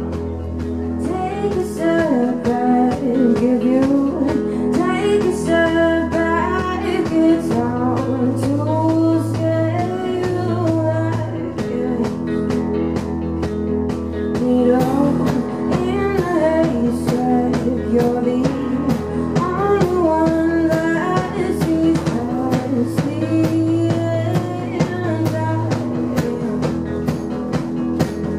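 Live band music: a woman singing a wavering melody over held keyboard chords and a steady drum beat.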